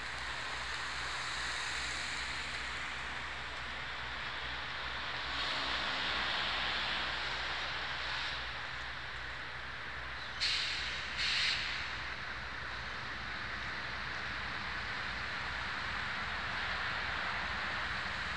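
Approaching freight train's diesel locomotives, a low steady hum under a steady hiss of outdoor noise. Two short, sharp sounds come about ten and eleven seconds in.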